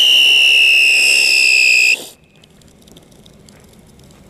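Siren firework screaming: one loud, shrill whistle that sinks slightly in pitch and cuts off about two seconds in, followed by faint crackling from the dying sparks.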